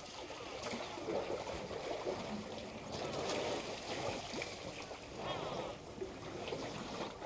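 Herd of African elephants drinking at a waterhole: irregular splashing and sloshing of water as their trunks draw and pour it. A brief higher call comes about five seconds in.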